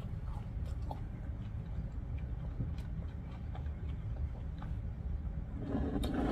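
A person chewing a bite of fried vegetable spring roll with her mouth closed: faint, scattered soft mouth clicks over a steady low hum.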